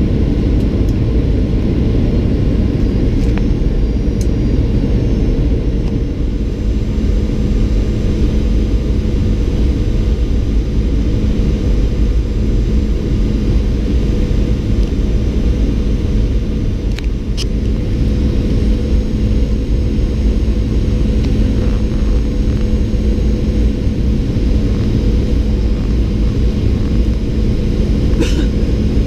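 Steady cabin noise of a Boeing 737-800 on final approach: the CFM56 turbofans and rushing air give a constant low rumble. A steady low hum joins about six seconds in.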